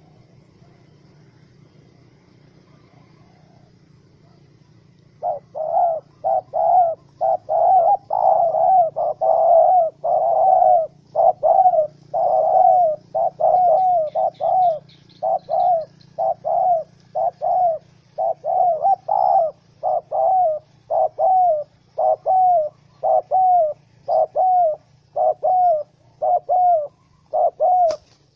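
Spotted dove giving a long run of short coos, about two a second, starting some five seconds in.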